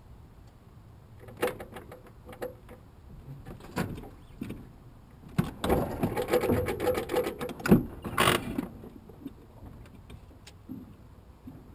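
Irregular mechanical clicks and rattles, busiest in a cluster about halfway through, then dying down.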